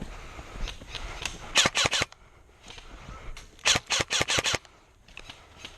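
Airsoft guns firing two quick strings of sharp snapping shots. The first string is short, and the second, longer one follows about two seconds later.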